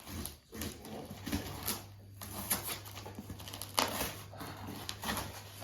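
Scattered light knocks and rustles of a cardboard box being handled, over a faint steady low hum.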